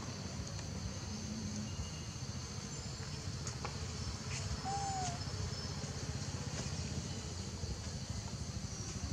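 Forest ambience: a steady high insect drone over a low rumble, with one short bird call a little under five seconds in and a few faint chirps.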